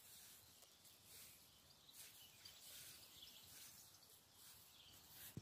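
Near silence: faint outdoor background with no distinct sound.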